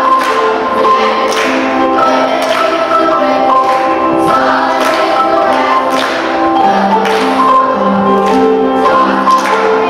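Children's gospel choir singing with accompaniment, hands clapping along with the beat.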